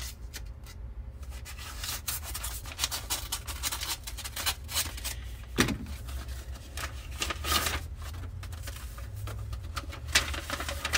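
Paper envelope being opened and handled: irregular rustling and crinkling of paper. About halfway through there is one sharper knock, as a utility knife is laid down on the wooden table.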